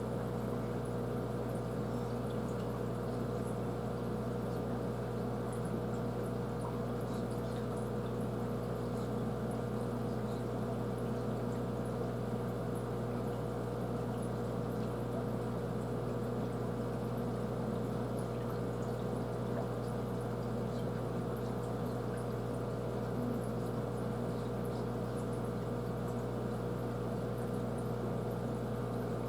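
Aquarium filter running: a steady hum with water trickling and splashing into the tank.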